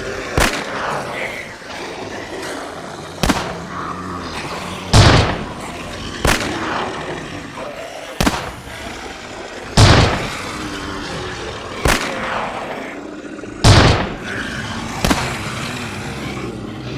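A string of musket gunshots, about ten shots a second or two apart. Some are heavier and echo, others are sharper, thinner cracks.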